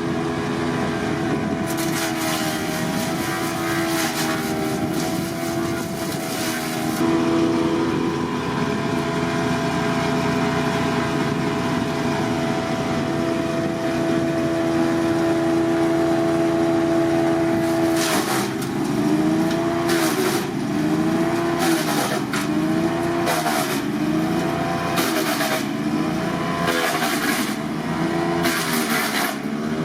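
JONCO R13P wood chipper with a hydraulic feed roller chipping a branch full of side branches. The engine runs steadily while the rotor cracks and shreds the wood. Past the middle, the engine's pitch dips and recovers again and again as the rotor takes each bite.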